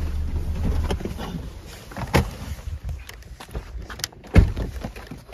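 Low rumble of the car running, heard inside the cabin, fading after about a second. A car door is then opened, with clicks and knocks, and a heavy thump about four seconds in, the loudest sound, as the door is shut.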